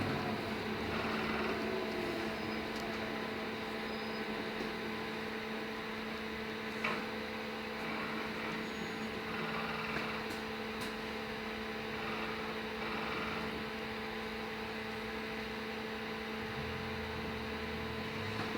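Steady electrical hum inside a LiAZ-6274 electric bus cabin: a low drone with two fixed tones that holds the same pitch throughout, and one faint knock about seven seconds in.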